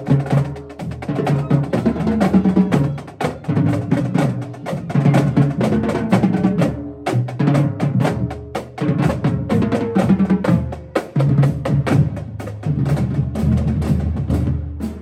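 Marching drumline playing a cadence: snare drums, tenor drums and a bass drum beat a dense, steady rhythm, with cymbals.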